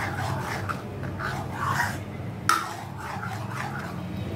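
Steel spoon stirring thick semolina-and-milk batter in a steel pan, with short repeated scrapes and one sharp clink against the pan about two and a half seconds in.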